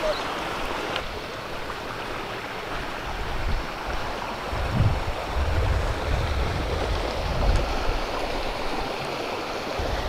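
Small mountain creek running over rocks, a steady rushing babble. Low rumbling bumps on the microphone come and go through the second half.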